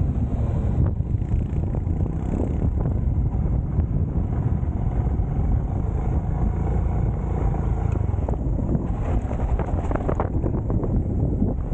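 Royal Enfield Himalayan's single-cylinder 411 cc engine running steadily while riding, with wind rumbling on the microphone.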